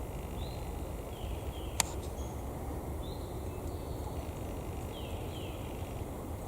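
Small birds chirping, short single notes and quick falling sweeps repeated every second or two, over a steady low rumble. One sharp click about two seconds in.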